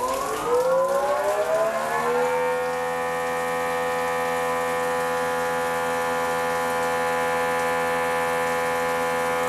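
Greenworks Pro 2300 psi electric pressure washer's motor and pump starting from its total-stop standby and ramping up, a whine rising in pitch over the first two seconds, then running at a steady higher-pitched whine. It reads about 82 to 83 decibels at two to three feet.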